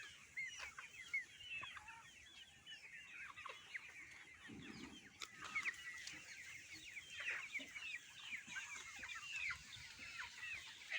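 A flock of chickens calling: many short, high-pitched calls overlapping one another.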